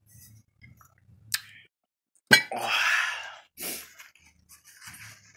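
A person's breath and mouth sounds: faint smacking and small clicks, then a loud rush of breath starting with a click about two seconds in, and a shorter one about a second later.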